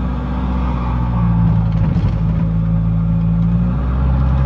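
Toyota Hilux 3.0 turbodiesel with a straight-through aftermarket exhaust (diffuser and comb insert, catalytic converter removed) running at steady revs, a loud, even drone heard from inside the closed cabin.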